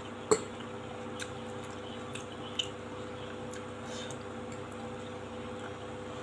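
Metal fork and spoon stirring and lifting saucy instant noodles on a glass plate: soft wet squishing, a sharp clink of metal on glass about a third of a second in and a smaller one near the middle, over a steady hum.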